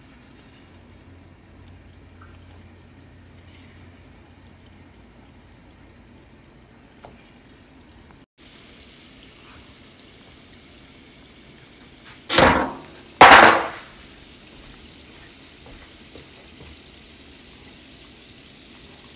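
Accra banana fritters (banana-and-garri dough balls) frying in hot oil in a pan, a faint steady sizzle. About two-thirds of the way through come two loud, short bursts of noise about a second apart.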